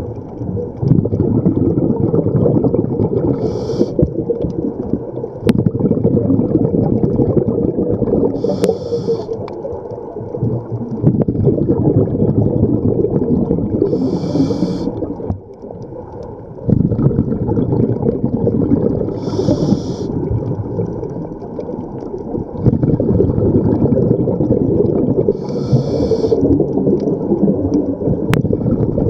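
Scuba diver breathing through a regulator underwater: a short hiss on each inhale, five times about every five seconds, each followed by a low, continuous rumble of exhaled bubbles.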